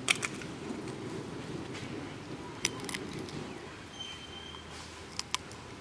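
Steady low background hum of an open-air place, with a few scattered sharp clicks and taps in pairs and a brief faint whistle-like tone.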